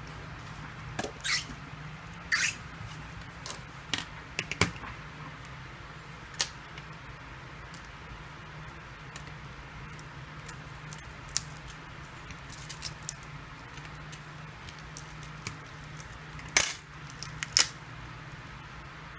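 Scattered sharp clicks and taps of pry tools and the cracked glass back cover against the phone and a hard desk, as the back glass of a Samsung Galaxy S6 Edge is pried off, loudest twice near the end. A steady low hum runs underneath.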